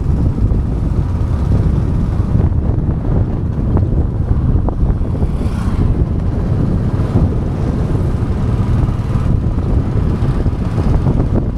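Steady, heavy wind rumbling over the microphone, with motorcycle and road noise underneath, as from a bike on the move.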